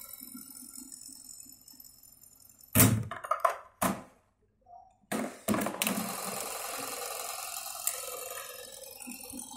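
Reece S105 buttonhole machine being worked by hand: a run of loud metallic clunks and clicks about three seconds in and two more near the five-second mark, over a low steady mechanical hum.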